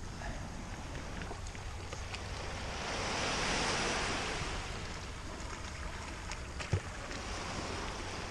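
Small waves washing on a pebble shore beside a kayak, swelling into a louder wash about three seconds in. A single dull knock comes near the end.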